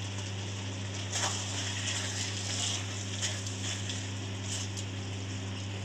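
A slotted spatula stirring and scraping thick sauce and sliced peppers around a metal kadhai, with a few faint scrapes over a steady low hum.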